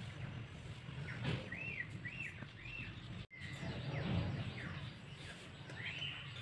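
A bird chirping in the background: a quick run of three arched chirps, then single chirps a little later and near the end, over a steady low background noise. The sound drops out for a split second just after three seconds in.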